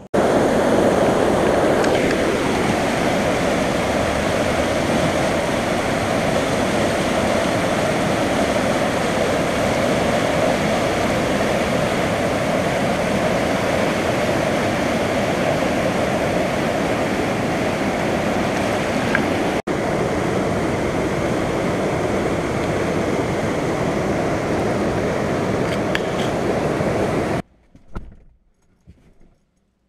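Swollen floodwater rushing and churning in whitewater past a bridge's piers: a loud, steady roar of water. It cuts off sharply near the end, giving way to a quiet vehicle cabin with a few faint knocks.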